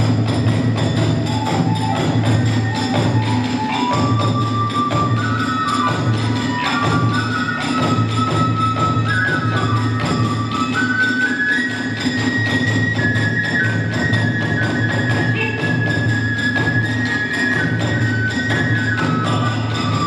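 Kagura hayashi ensemble accompanying the dance: a bamboo transverse flute plays a melody that climbs step by step, over steady taiko drumming and continuous clashing of small hand cymbals.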